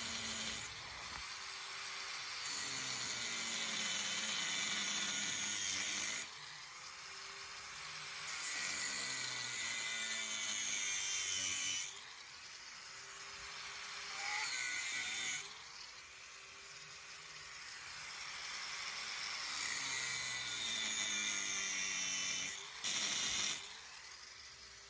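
A power tool cutting through the old driveshaft centre bearing, in about five bouts of a few seconds each, its pitch sagging and recovering as it bites.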